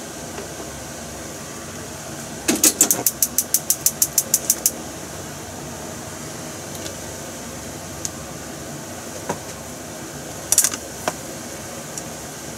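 Gas stove igniter clicking rapidly, about six clicks a second for about two seconds, over a steady background hum. A short cluster of sharper clicks comes near the end.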